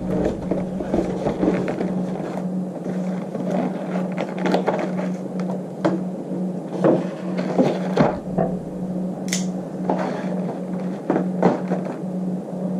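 Packaging being handled as a box of keyboard keycaps is opened: scattered clicks, knocks and rustles over a steady low hum.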